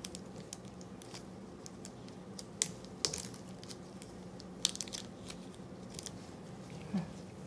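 Gloved hands twisting a cotton handkerchief and winding rubber bands around it: soft rustling and rubbing with a few small sharp clicks, over a faint steady hum.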